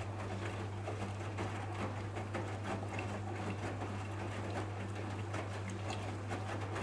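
AEG Lavamat 8000 front-loading washing machine tumbling a wet load of towels and socks during its softener rinse. Water splashes and patters inside the drum over a steady low motor hum.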